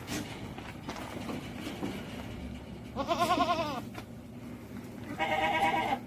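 Domestic goats bleating twice: a quavering bleat about three seconds in, then a second, steadier bleat near the end.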